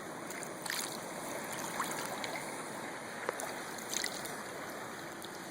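Steady rush of flowing stream water, with a few faint small splashes.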